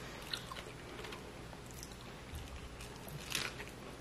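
Faint crackling and rustling of a hard corn taco shell being handled, with a louder crackle about three seconds in.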